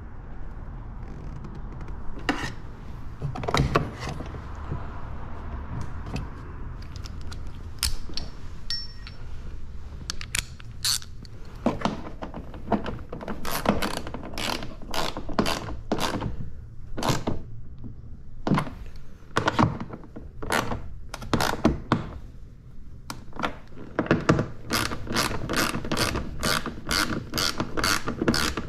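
Socket ratchet wrench clicking in quick runs as it turns bolts, with the odd knock of the tool against the fittings.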